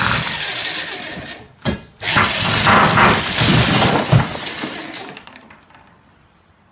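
Electric jackhammer chiselling at a tempered-glass pool-fence panel, then the panel shattering about two seconds in: a sudden crash of glass breaking into small pieces that rattle and tinkle down, fading away over the next few seconds.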